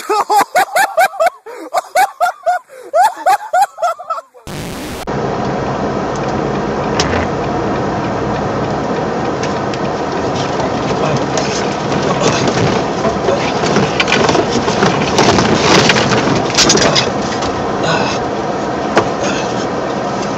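Loud voices for about four seconds, then an abrupt cut to steady road and engine noise heard from inside the cab of a truck driving on a snow-covered motorway, with scattered knocks and rattles.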